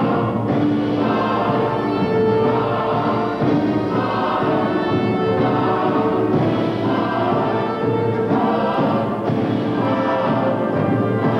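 Orchestral music with a choir singing sustained notes.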